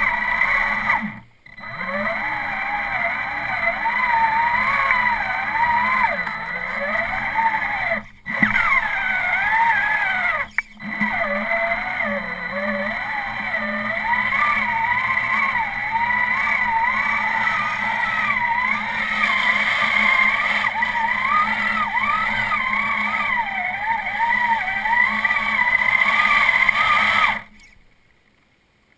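Traxxas Summit RC truck's stock Titan 775 brushed electric motor and drivetrain whining, the pitch rising and falling constantly with the throttle, as the truck drives through shallow swamp water, heard from a camera mounted on the truck. The sound cuts out briefly three times and fades away near the end.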